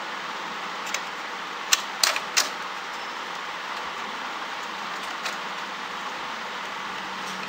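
Sharp plastic clicks and knocks from hands working parts of an Epson ink-tank printer's carriage frame: a quick cluster about two seconds in and a single click a few seconds later, over a steady hiss.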